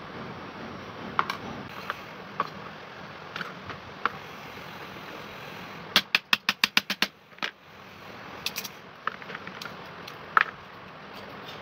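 Hammer tapping a screwdriver used as a punch on a knife's riveted wooden handle, knocking the rivets out. A quick run of about ten sharp metal knocks comes in the middle, with single knocks and clatter of tools on the bench before and after.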